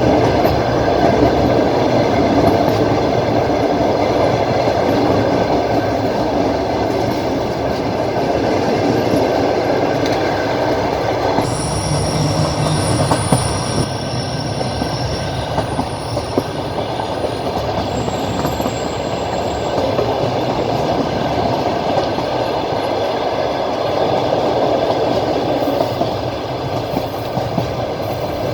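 Passenger train running, heard from inside the carriage: a steady rumble of wheels on the rails with light clicks over the rail joints. Near the middle a thin, high wheel squeal sounds for several seconds.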